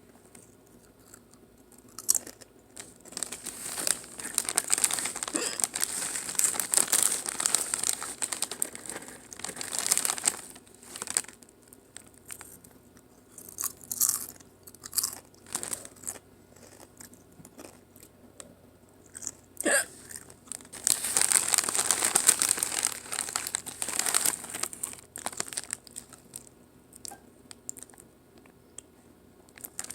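Doritos tortilla chips being crunched and chewed close to the microphone, in two long spells of chewing with single crunches between them.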